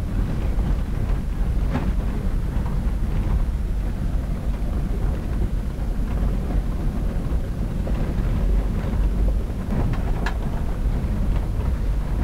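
Land Rover Defender heard from inside the cab, driving slowly over a rough dirt track: a steady low rumble of engine and running gear, with a few brief knocks as it goes over bumps.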